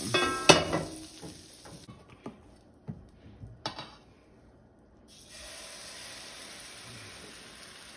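Fat sizzling in a hot blue carbon steel frying pan, with a few sharp clicks and knocks in the first four seconds. The sizzle drops away for a few seconds, then returns as a steady hiss near the end as pancake batter goes into the pan.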